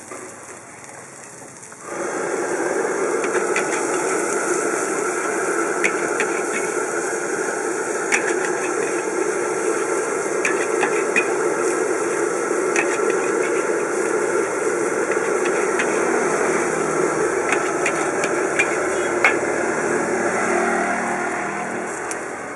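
Vegetables stir-frying in a hot wok over a fire: a steady, loud sizzle starts suddenly about two seconds in and eases off near the end, with a metal spatula clinking against the wok again and again.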